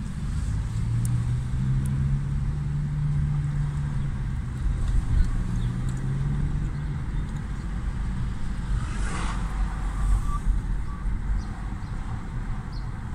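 Inside a moving car in city traffic: low engine hum and road rumble, with a brief rushing swell of noise about nine seconds in.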